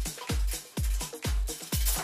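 Background electronic dance music with a steady four-on-the-floor kick drum, a little over two beats a second.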